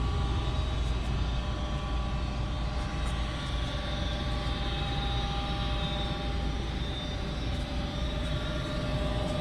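Goodman 95% AFUE condensing gas furnace running at heat: a steady rush of air and low hum, with a few faint, steady whining tones above it.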